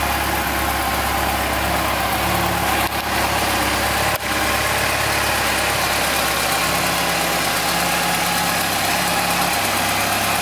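Yamaha FJR1300's inline-four engine idling steadily, with two very brief breaks in the sound about three and four seconds in.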